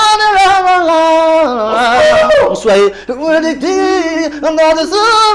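A man singing solo without accompaniment in a high voice, holding long notes with vibrato and sliding between pitches, with short breaks between phrases.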